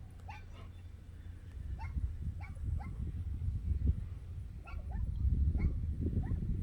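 Dogs barking and yipping in a dog park: a string of short, rising yelps over a low rumble that grows louder near the end.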